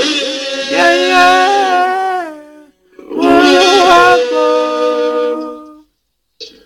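Women singing together in long held notes, two phrases with a short break between them, the voices stopping shortly before the end.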